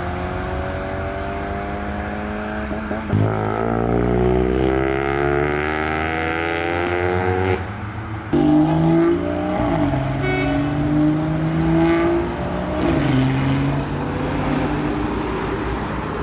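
Modified cars accelerating hard away from a junction one after another. Each engine climbs in pitch and drops back at the gear changes. A louder car comes in about three seconds in, and another just after eight seconds.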